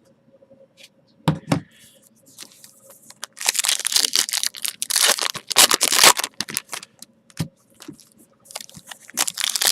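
Trading card pack wrappers being torn open and crinkled, in two spells of ripping and crackling. Two light knocks come just over a second in.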